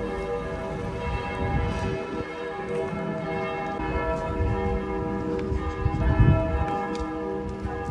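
Several bells ringing together, their long overlapping tones sustaining and changing every second or so. A low rumble underneath swells to its loudest about six seconds in.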